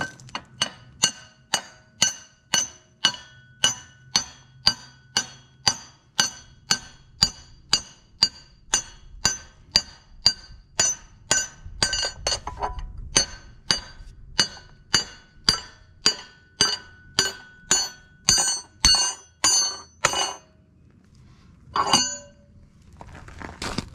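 Hammer blows on a drift punch driving a steel pivot pin out of a mini excavator thumb mount, about three strikes a second, each with a bright metallic ring. The hammering stops near the end, with one last blow after a short pause.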